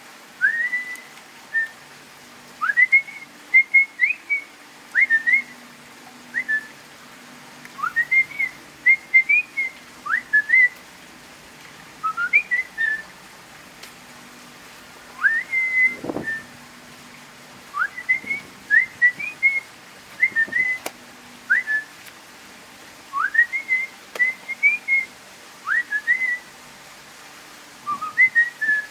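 A person whistling a tune over and over in short phrases, each a quick upward slide followed by a few short notes. A single dull thump comes about sixteen seconds in.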